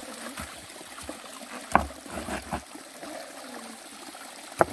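Water trickling into a small rock-lined pond. A few sharp knocks of stones being handled and set down: the loudest about two seconds in, two lighter ones just after, and another near the end.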